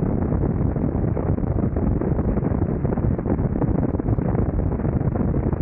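Steady wind rush buffeting a 360 camera's microphone held out from a motorcycle at about 70 mph on the highway, a dense rumble with the engine and road noise buried under it.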